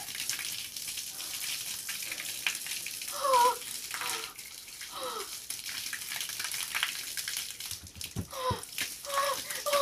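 Garden hose spraying water over a person's head and shirt, a steady splashing hiss, with a few short vocal cries mixed in.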